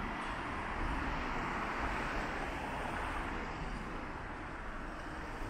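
Road traffic: cars passing through a junction, a steady hiss of tyres and engines that swells in the first couple of seconds and then eases off.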